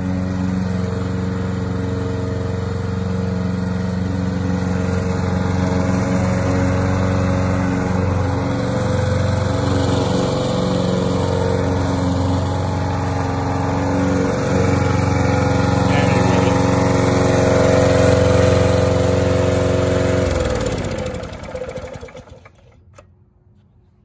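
Small gasoline engine of a remote-controlled Murray walk-behind lawn mower running steadily as the mower drives across the grass. About twenty seconds in the engine stops, its pitch falling as it winds down.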